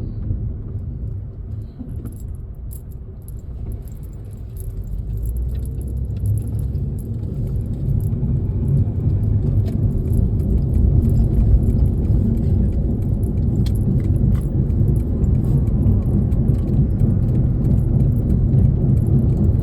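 Road and engine rumble inside a moving car's cabin, building as the car picks up speed a few seconds in and then holding steady, with small jingling rattles throughout.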